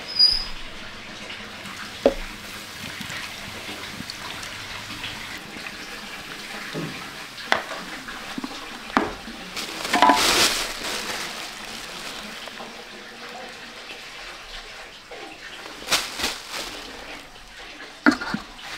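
A beer can cracked open with a short hiss, then beer poured into a pot of fish, liquid splashing steadily with a few knocks of handling. A pot lid is set down on the pot near the end.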